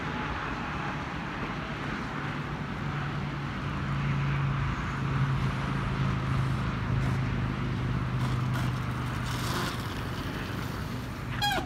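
Electric dirt bike, a Suzuki RM 125 converted to a QS Motor 8000 W hub motor, riding on asphalt. It gives only a low steady hum and road noise, which grow louder as the bike comes near, and a short squeal near the end.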